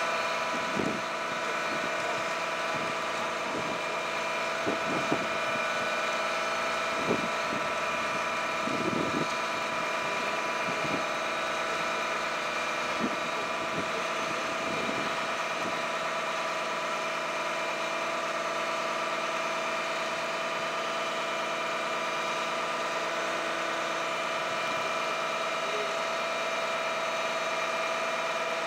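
Volvo FM aerial-platform fire truck's diesel engine and hydraulics running with a steady hum and whine while the boom is lowered to its rest. A few short knocks come in the first half.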